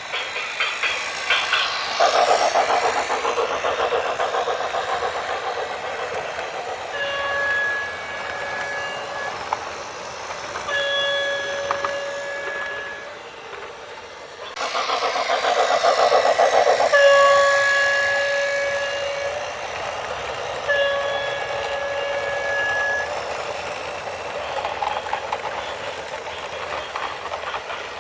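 A loud horn sounds four times, each blast about two seconds long and held on a steady chord, over heavy rumbling noise. The noise changes abruptly about halfway through.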